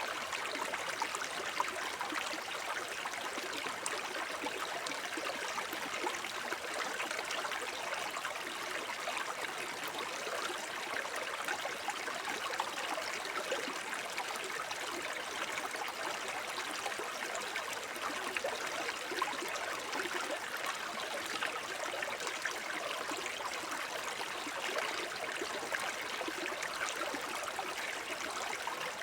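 Shallow forest brook babbling over stones: a steady, even rush of running water with fine trickling and splashing.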